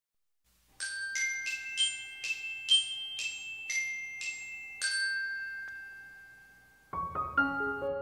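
Intro jingle of about ten bright, bell-like struck notes in quick succession, the last one ringing out and fading. About a second before the end, softer background music with keyboard-like notes starts.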